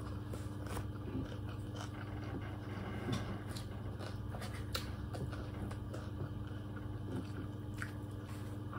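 A person chewing food, with scattered small clicks of a fork and spoon against a plate, over a steady low hum.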